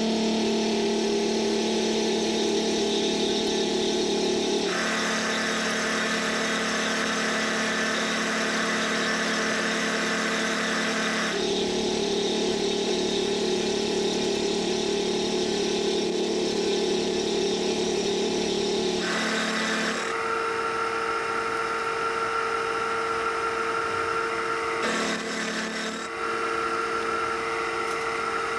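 Vertical milling machine running, its end mill cutting metal as it machines a T-nut: a steady hum and whine, with several sudden changes in tone.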